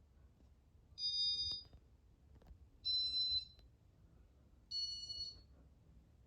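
Three high-pitched electronic beeps, each about half a second long and roughly two seconds apart, over a faint low hum.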